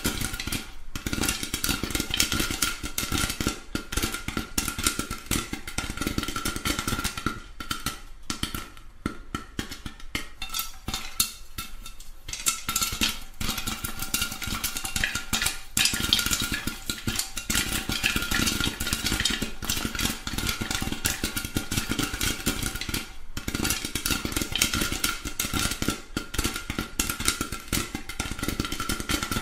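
Popcorn popping: a dense, continuous run of rapid small pops with a faint steady tone underneath, thinning briefly a few times.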